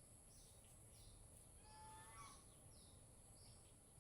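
Near silence with faint background ambience: short high chirps repeating about twice a second, typical of insects, and a brief bird-like call about two seconds in.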